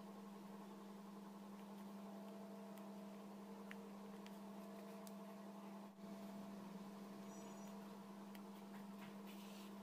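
Near silence with a steady low electrical hum and a few faint ticks.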